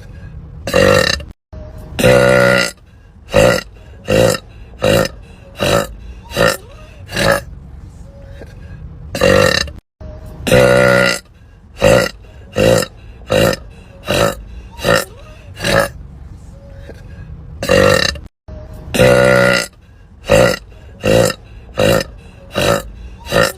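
A woman burping over and over: runs of short burps about one and a half a second, broken now and then by a longer, louder drawn-out burp. There are a few brief dead-silent gaps between runs.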